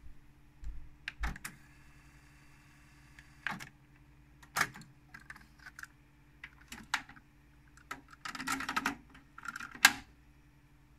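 Front-panel buttons on a Pioneer CT-W205R double cassette deck being pressed: a string of irregular clicks, with a quick run of clicks near the end, over a faint steady hum.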